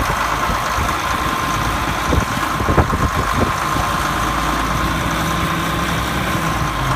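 An engine running steadily at idle, with a few short knocks about two to three and a half seconds in.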